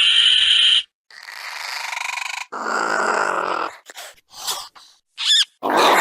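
Compsognathus creature sound effects, designed film-style small-dinosaur calls played one after another with short gaps. A shrill, steady screech cuts off about a second in. It is followed by a hissing call, a lower, rougher call, quick squeaks, and a louder call near the end.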